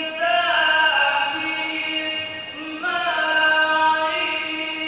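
A man reciting the Quran in melodic tilawah style into a microphone, unaccompanied: long held notes in a high register, with quick ornamented turns where a new phrase begins about a third of a second in and again near three seconds.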